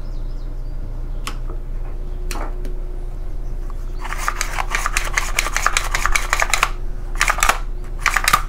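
Recoil starter of a Redmax EBZ8500 backpack leaf blower being handled and tested after reassembly: a few single clicks, then from about halfway through, runs of rapid rattling clicks from the starter assembly as it is worked by hand.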